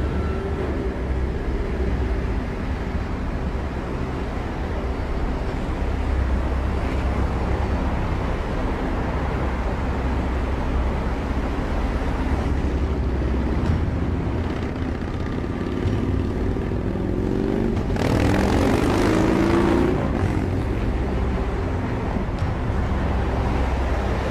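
Steady low engine rumble with a steady pitched hum. About three-quarters of the way through, an engine note rises quickly and briefly grows louder.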